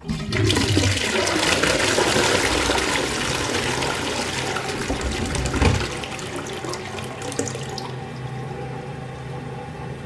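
Toilet flushing with the seat up: a sudden rush of swirling water in the bowl, with a low gulp a little past halfway as the bowl drains. Near the end it settles into a quieter, steady running of water.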